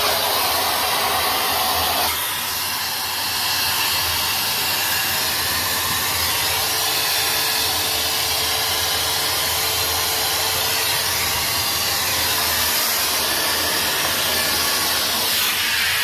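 Numatic Henry XL vacuum cleaner running steadily, a continuous rush of air through the hose and wand as it sucks at stair carpet. Its sound drops a little about two seconds in.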